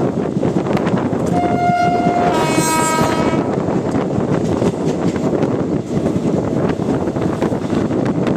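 Two-tone horn of an Indian Railways WAP-7 electric locomotive, sounded once for about two seconds: a higher note, then a lower one. Under it runs the steady rumble and clatter of the train's wheels on the track.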